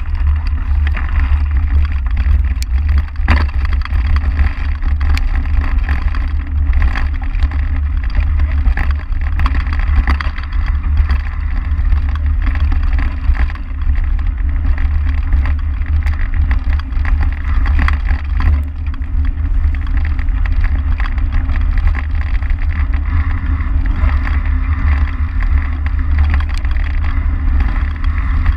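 Mountain bike riding over a dirt trail, heard from a bike-mounted action camera: a steady, loud, dull rumble of wind and vibration on the microphone over the hiss of knobby tyres on dirt, with scattered small clicks and rattles from bumps.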